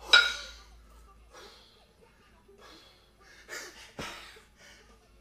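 Two 22 kg kettlebells being jerked: a loud, sharp metallic clank with a hard exhale as the bells drop back into the rack, then heavy breathing and a thud about four seconds in as the bells are driven overhead again.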